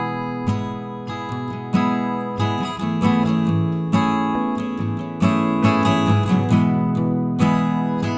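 Background music: strummed acoustic guitar, with a chord struck roughly every second.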